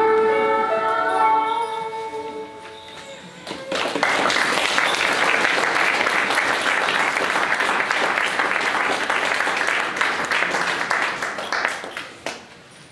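Children's voices with backing music hold the last note of a song, fading out about three seconds in. Then the audience claps for about eight seconds, and the clapping dies away near the end.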